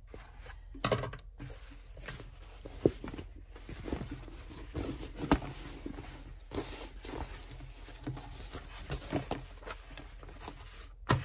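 Hands turning out and smoothing a woven fabric tote bag: cloth rustling and brushing, with scattered light knocks and taps against the table.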